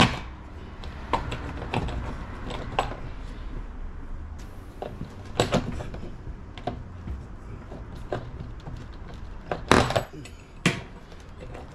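Hand tools clicking, scraping and knocking on metal service-entrance cable straps as they are worked loose from the house wall. Scattered sharp clicks, with a few louder knocks, the loudest near the end.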